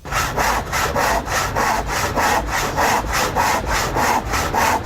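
Handsaw cutting through a timber board in quick, even back-and-forth strokes, about four a second, starting suddenly.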